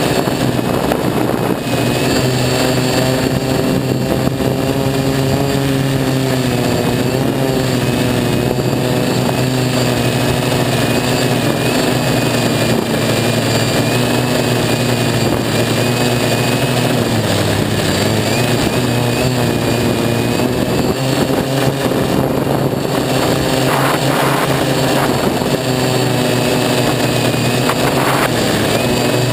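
DJI F450 quadcopter's four 2212/920kv brushless motors spinning 1045 propellers in flight, a steady buzz whose pitch wavers up and down with throttle changes. The pitch dips briefly a little past the middle.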